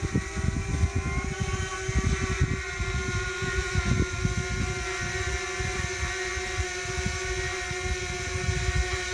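DJI Mini quadcopter hovering side-on, its four propellers giving a steady screech of several held tones with interference between the propellers that makes a loud, beating sound. Gusts of wind rumble on the microphone underneath.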